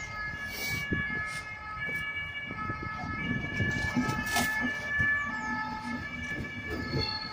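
Deutsche Bahn Intercity train with its cab car leading rolls past, its running gear giving a steady high squeal of several tones at once. Under it the wheels rumble and knock over the rail joints, louder as the coaches come alongside about halfway through.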